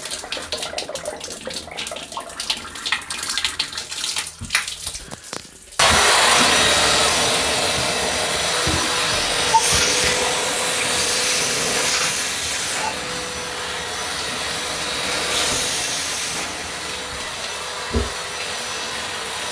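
A wet vac is switched on about six seconds in and runs steadily, its hose held over the shower valve's outlet to suck water through the pipework and clear an air lock. Before it starts there are clicks and handling knocks.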